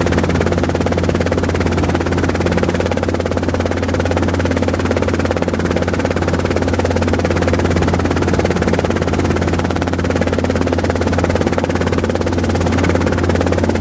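Robinson R22 two-blade helicopter in flight heard from inside the cabin: a steady, loud engine and rotor drone with a low hum and a fast, even beat.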